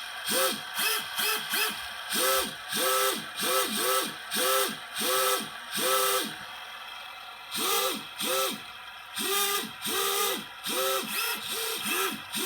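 Racerstar BR1103 brushless motors on a micro quadcopter, spun up in quick throttle blips, each a short whine that rises, holds and drops, about one or two a second with a pause of about a second just past halfway. A gritty rattle runs under the whine, the sound of bad motor bearings.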